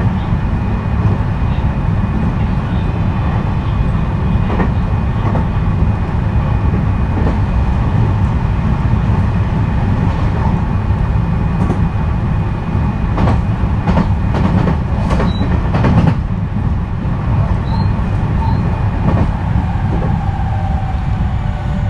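JR West 223 series 3000 subseries electric train with a Hitachi third-generation IGBT inverter running, heard from aboard: a steady rumble of wheels on rail with scattered clicks over rail joints. Near the end the inverter's tone falls in pitch as the train slows.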